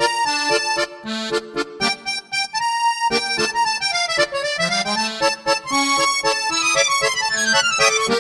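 Solo accordion playing a waltz in D minor, with a falling run of notes near the end.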